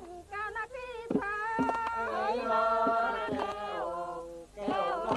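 Jariang Nor Kaew folk singing: at first a single voice sings short phrases. From about two seconds in, several voices join and hold long notes together as a chorus, with a few sharp claps among them.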